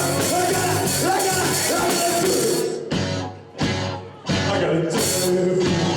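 Live rock band playing, with singing and guitar, broken by several abrupt cuts about halfway through.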